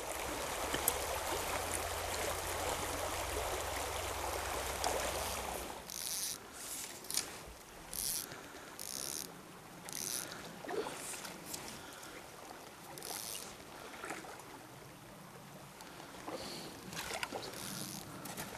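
A small, shallow mountain stream running over rocks. For the first six seconds the hiss is louder and steadier, with a low hum under it. After that it is quieter, broken by short bursts of hiss.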